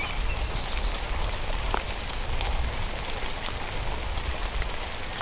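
Steady hiss like falling rain, with scattered small ticks and a low rumble underneath.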